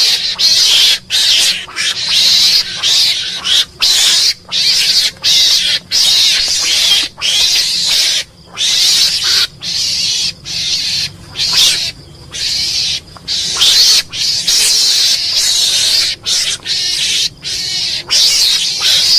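Mongoose calling: a fast run of harsh, hissing, high-pitched calls, each under a second, with brief breaks between them.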